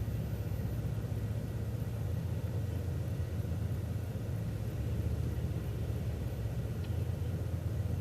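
City transit bus driving along at a steady pace: a continuous low rumble of engine and road noise.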